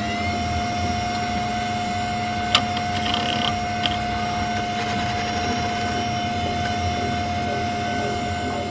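A steady mechanical whine holding one pitch over a low rumbling hum, like a motor that has just spun up to speed. There is a sharp click about two and a half seconds in.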